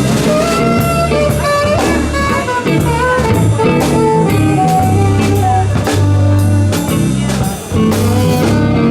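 Band playing an instrumental break: a drum kit keeping a steady beat under bass notes, while a lead instrument plays a melody of held notes that steps downward.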